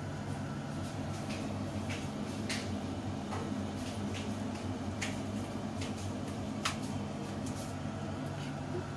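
Covered pans of sauce simmering on a gas stove: a steady low hum with small irregular ticks and pops, and one sharper click about two-thirds of the way through.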